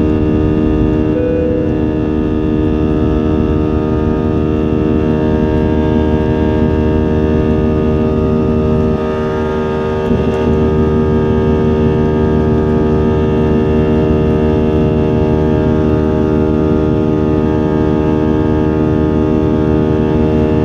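Airbus A320 cabin noise in the climb just after takeoff: the jet engines give a steady hum of many fixed tones over a low rumble of air. A short higher tone sounds about a second in.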